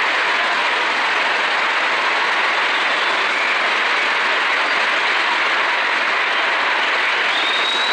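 Large audience applauding steadily, with a faint high whistle near the end.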